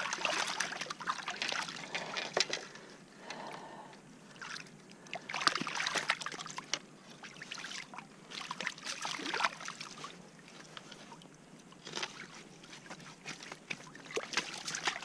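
Shallow water sloshing and splashing in irregular bursts as hands move a trout around in a landing net held in the water.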